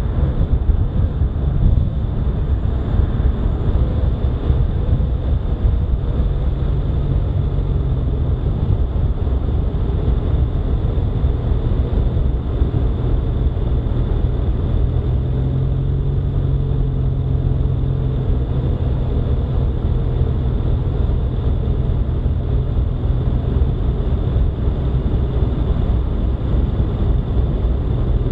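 Steady rumble of a car driving along a paved road: tyre and wind noise with a faint engine hum underneath.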